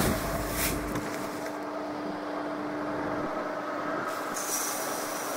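ZTS 16245 tractor's diesel engine idling steadily. Granular fertilizer rustles in a woven sack as it is scooped with a plastic bucket, and near the end granules hiss as they are poured into a seed drill's hopper.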